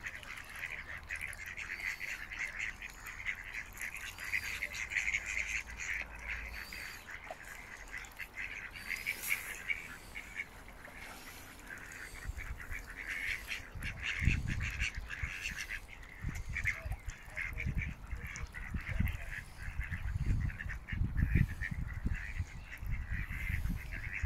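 A flock of mallard ducks quacking over and over in a busy chorus. Low rumbling bursts come in over the second half.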